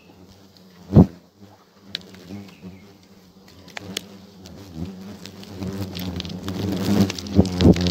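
A swarm of hornets buzzing as they are let out of a bag beside their hung nests, the buzz growing louder over the last few seconds as more fly. A single sharp thump about a second in is the loudest moment.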